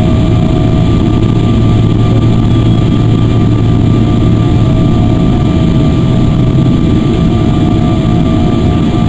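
Boeing 777-300's jet engines heard from inside the cabin over the wing, holding high takeoff power after spooling up: a loud, steady rumble under several steady whining tones.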